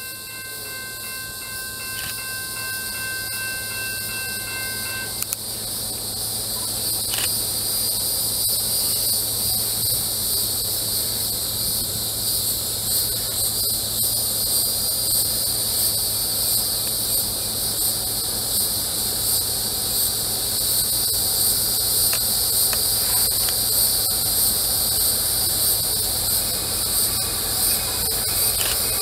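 A distant locomotive horn sounds one long steady blast that cuts off about five seconds in. Cicadas drone over a low train rumble that slowly grows louder as the train approaches, and the horn sounds faintly again near the end.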